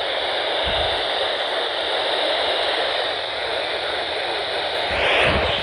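Steady hiss of static from an FM weather radio receiver tuned to 162.400 MHz, with a short louder rush of noise near the end.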